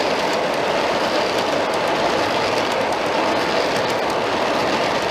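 Long string of 1/29-scale model coal hoppers with steel wheels rolling past on 45 mm garden-railway track: a steady rolling noise with light, irregular clicks of wheels over the rail joints.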